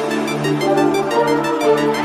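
Background electronic music with steady held synth chords.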